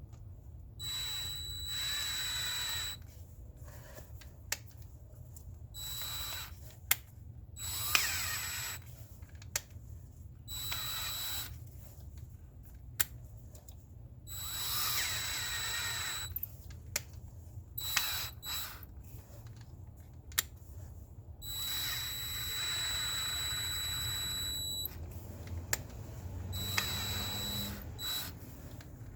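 Power drill run in repeated bursts of one to three seconds, with sharp clicks between, working stripped 6 mm intake manifold bolt holes in the engine block for thread-repair coils.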